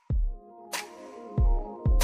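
Electronic background music: deep bass-drum hits falling in pitch, three of them, with sharp cymbal-like hits and held synth notes.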